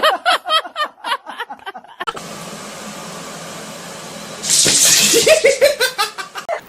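A person laughing in quick repeated bursts, then a steady rushing noise. Near the end, more laughter comes over a louder hiss.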